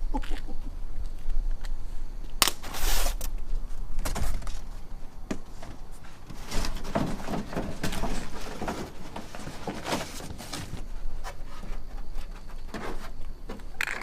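Irregular rustling, scraping and light knocks of packaging and body-kit panels being handled during unboxing, with a couple of louder rustles about two and a half seconds in and again around seven seconds.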